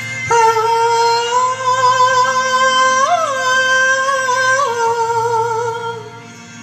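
A woman singing one long held note with vibrato and a brief ornament in the middle, over a steady melodic backing track. The note fades out near the end.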